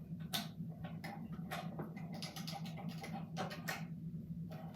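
Irregular light clicks and taps of wires and battery leads being handled while they are connected, over a steady low hum.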